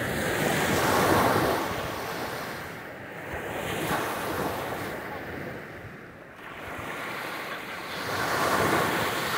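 Sea surf: waves breaking on a shore, the rush of water swelling and falling three times, with wind buffeting the microphone.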